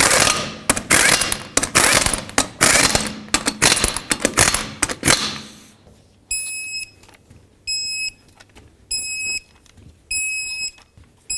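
A half-inch impact gun runs the lug nuts on in a series of short bursts. A torque wrench then beeps four times, about a second and a quarter apart, each beep marking a lug nut reaching its set torque of 100 foot-pounds.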